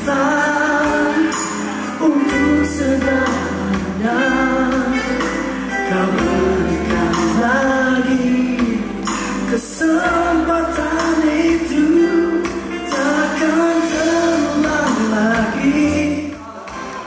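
A man singing a song into a microphone over live band accompaniment, with a bass line underneath the melody.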